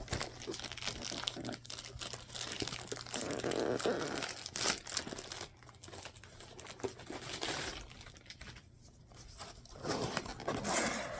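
Packaging crinkling and tearing as a box is unpacked by hand, in irregular rustling bursts with a short lull about eight seconds in.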